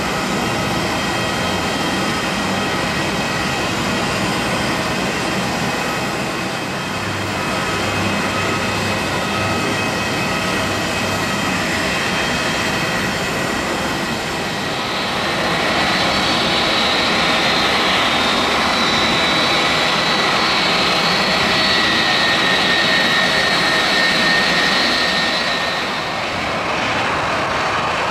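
Boeing 757-200's two jet engines whining at taxi power after landing: a steady whine with several high tones over a rushing noise, growing louder and brighter about halfway through and easing slightly near the end.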